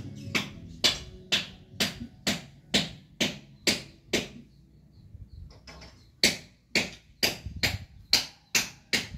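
Repeated hammer blows, about two a second, during paving work. They pause for about two seconds midway, then resume at the same pace.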